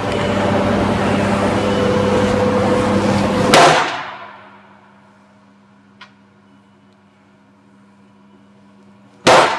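A few seconds of building rushing noise, then two loud metal impacts about five and a half seconds apart, each ringing briefly. This is the impeller end of a Cornell manure pump being slammed against the steel workbench so the impeller's inertia breaks its threads loose from the shaft.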